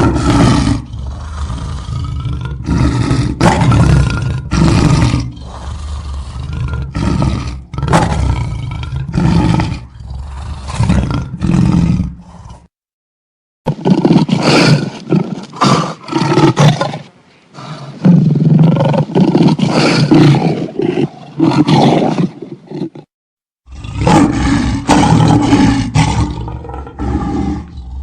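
Lion roaring: a run of loud, repeated roars and grunts, broken twice by abrupt short silences where the recording is cut.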